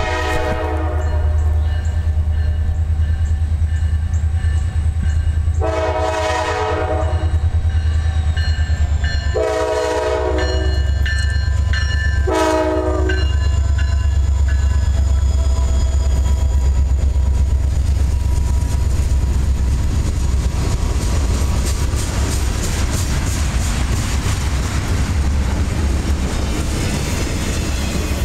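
Diesel freight locomotive's horn sounding a series of blasts, the last one short about twelve seconds in, over the low rumble of the approaching engines. The locomotives then pass close with a loud, steady diesel rumble, followed by the rattle and clatter of freight-car wheels on the rails.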